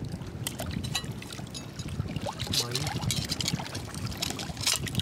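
Oyster shells clicking and scraping against one another as a cluster is handled and turned over, with many short sharp clicks over a steady low wet background.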